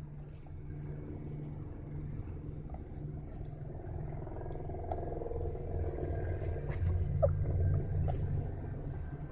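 Steady low rumble inside a moving car's cabin, with a few faint short clicks.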